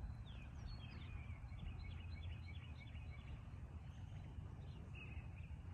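Many small birds chirping, with short, quick calls overlapping throughout, over a steady low rumble.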